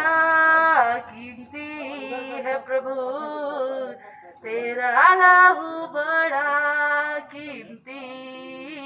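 A woman sings a Hindi devotional hymn through a microphone, holding long notes with gliding pitch, in phrases broken by short pauses.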